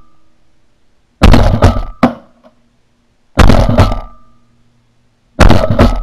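Three shotgun blasts about two seconds apart, each a sharp report that dies away over about half a second.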